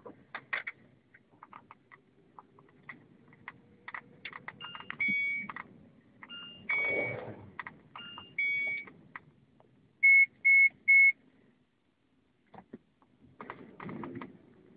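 Short electronic beeps at two or three different pitches among soft clicks, then three loud identical beeps in quick succession about ten seconds in.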